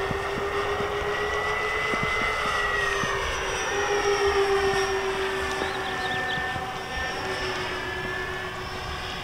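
Twin electric motors and propellers of a 63-inch Motion RC P-38 Lightning model plane in flight: a steady whine that rises a little in pitch and is loudest about four seconds in as the plane passes, then eases off slightly.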